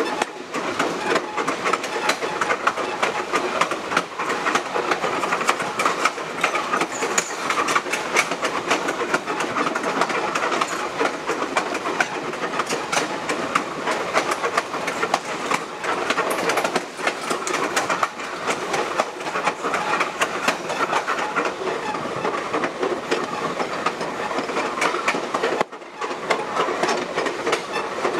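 Passenger train cars rolling along the track: a steady rumble of steel wheels on rails, with a constant clatter of clicks as the wheels pass over the rail.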